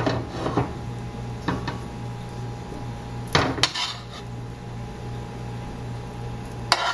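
A metal spoon scraping and clinking against a frying pan while stuffing is scooped out and spooned into the squash, a few separate clinks with the loudest pair about three and a half seconds in. A steady low hum runs underneath.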